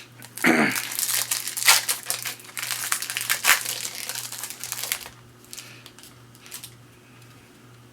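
Plastic wrapper of a baseball card pack being opened and crinkled by hand, with dense rustling for about four seconds, then a few faint clicks as it dies away.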